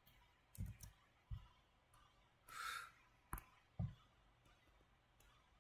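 Near silence with several soft taps of a stylus on a tablet's glass screen, and a short breath a little past halfway.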